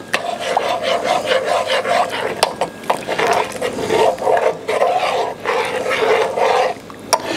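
A spoon stirring and scraping inside a saucepan as roux is worked into hot milk to thicken a béchamel: a repeated rasping scrape, roughly one stroke a second, with a few sharp clicks against the pan.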